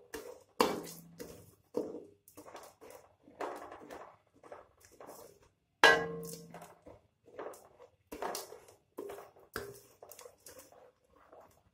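Metal spoon stirring granulated sugar in a stainless steel wok: irregular scrapes and clinks against the pan, with two louder knocks that ring briefly, about half a second in and about six seconds in. The sugar is just beginning to melt over low heat.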